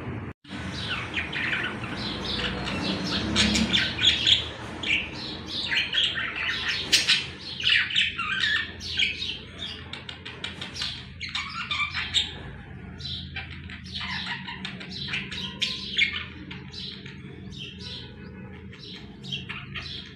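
Budgerigars chattering: a dense, continuous stream of quick chirps and warbles, busiest in the first half.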